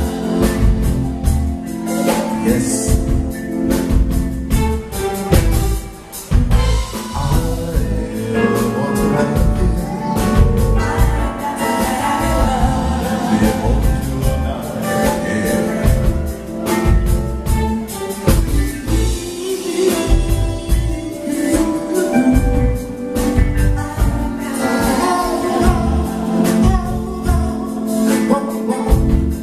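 Live band performing a song: a man singing lead into a microphone over drum kit, keyboard and electric guitar, with the music dipping briefly about six seconds in.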